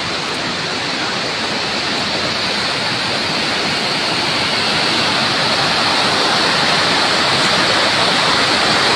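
Steady rushing of a fast river, growing gradually louder.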